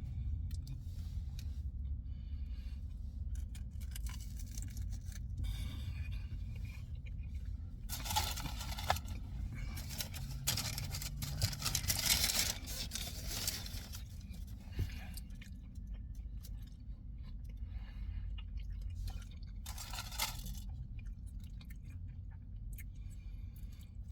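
A person biting into and chewing a soft pretzel wrapped around Italian sausage, with a few louder rustling stretches, over a steady low hum.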